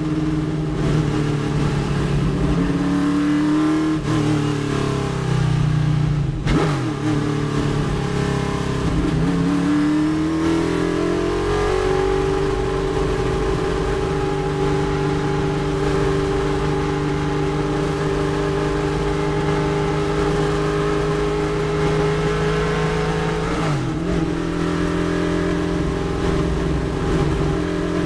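GTO-class Chevrolet Nova race car's V8, heard from inside the cockpit at racing speed. The engine note drops in steps as the car slows and downshifts for a corner, then rises steeply as it accelerates out about ten seconds in. It holds a steady high pull after that, with a brief break for a gear change near the end.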